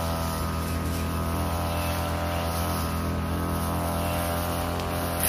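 Backpack brush cutter's engine running steadily as its 45 cm blade cuts through tall cogon grass, with a brief sharp tick at the very end.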